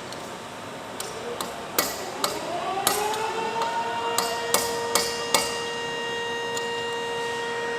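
A hammer strikes metal about ten times, in uneven taps over a few seconds, while new turbine blades are being fitted to a turbocharger rotor shaft. Meanwhile a machine's tone rises, starting about two seconds in, and settles into a steady hum.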